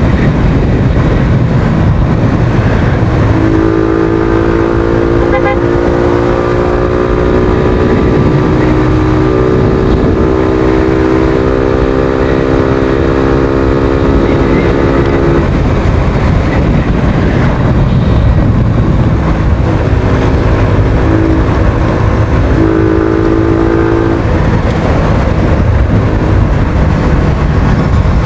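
Suzuki Thunder 125's single-cylinder four-stroke engine running while the motorcycle is ridden, under heavy wind noise on the microphone. The engine note holds steady for stretches of several seconds and shifts slightly in pitch as the throttle changes.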